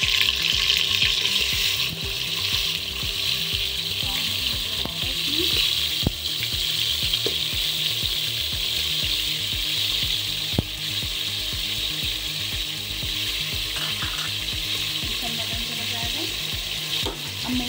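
Raw minced mutton sizzling in hot oil in a pressure cooker pan, a steady frying hiss. It is loudest for the first two seconds or so, just after the cold meat goes into the oil, then settles to an even fry with a few faint clicks.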